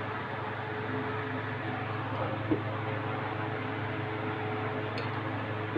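Steady hiss and hum of vegetables and noodles stir-frying in an aluminium wok over a gas burner, with one sharp knock about two and a half seconds in, likely the spatula striking the wok.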